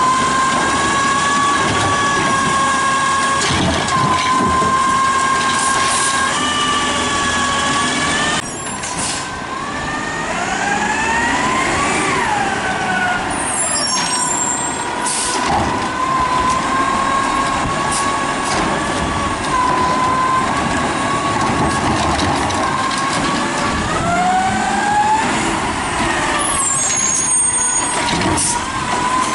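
2010 DaDee Scorpion side-loading garbage truck running, with a steady high whine over the engine rumble. Twice the whine climbs in pitch and drops back as the engine revs up and settles.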